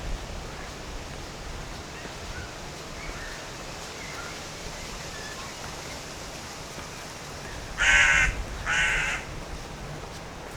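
A crow cawing twice: two harsh calls in quick succession about eight seconds in, over a steady outdoor background hiss, with a few faint bird chirps earlier.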